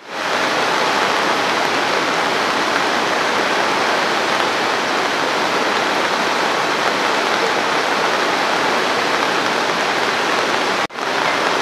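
A swollen, muddy river in flood rushing in a steady, loud roar of water. It cuts out for a moment near the end, then goes on.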